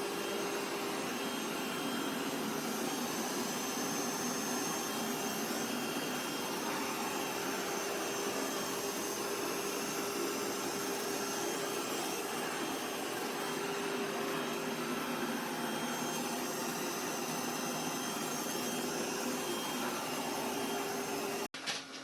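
Roborock Qrevo Edge robot vacuum's suction motor running steadily at high power, with a steady hum under the rush of air. It cuts off abruptly near the end.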